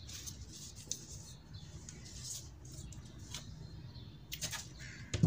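Plastic frame and LCD panel parts being handled, with light scraping and rustling of plastic and a couple of sharp clicks near the end.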